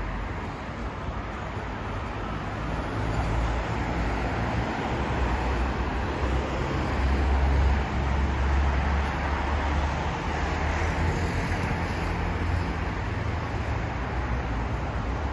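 Road traffic on a wet street: a steady hiss of tyres, with a vehicle's low engine rumble building and loudest about halfway through.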